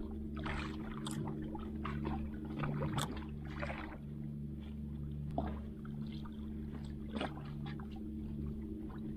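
A small engine running steadily in the background, with irregular splashes and trickles of water as a wet squid handline is hauled in by hand over the side of the boat.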